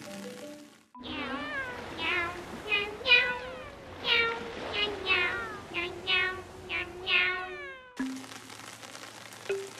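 A quick string of about a dozen short cat meows, each falling in pitch, over a light jingle; it starts about a second in and cuts off sharply near the end.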